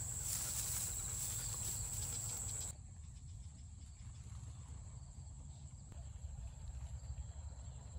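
Field insects chirring in a steady high-pitched whine over a low rumble. The sound drops suddenly quieter about three seconds in, and the chirring carries on faintly.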